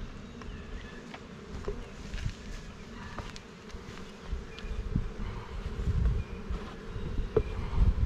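Honey bees buzzing steadily around a wooden swarm trap box as its lid is pried open with a hive tool, with a few sharp clicks and scrapes of the tool on the wood. A low rumble grows louder from about five seconds in.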